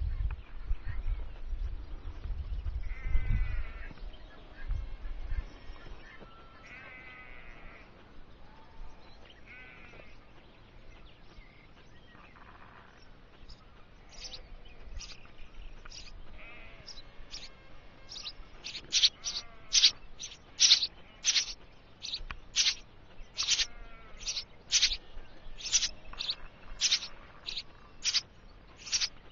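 Nestling songbirds inside a wooden nest box giving short, high-pitched begging calls, about one or two a second, starting about halfway through and getting louder toward the end. Earlier there is low rumbling noise and a few drawn-out animal calls.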